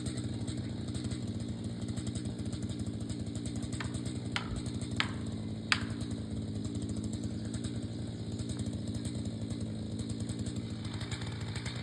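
Two-stroke chainsaw engine running steadily at low speed. About halfway through there are three short, sharp clicks about half a second apart.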